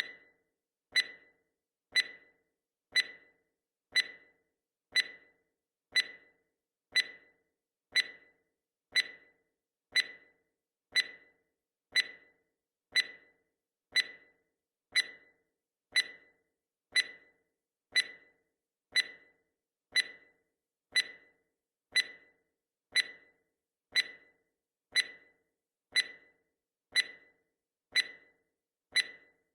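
Countdown timer's tick sound effect: one short, sharp tick every second, evenly spaced and the same each time, each fading quickly.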